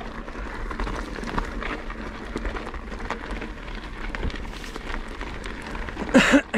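Mountain bike riding on a loose dirt trail: steady tyre crunch and rattle, with many small clicks and knocks from the bike over the ground. A brief loud burst with a low pitched edge sounds near the end.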